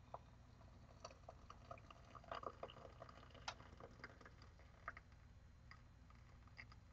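Hot water poured from a kettle through a metal tea steeper basket into a glass mug: a faint trickle with small scattered splashes and drips.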